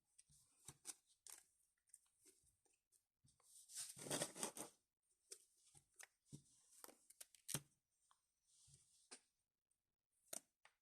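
Faint handling of trading-card packaging and cards: scattered light clicks and taps, with a longer rustle about four seconds in.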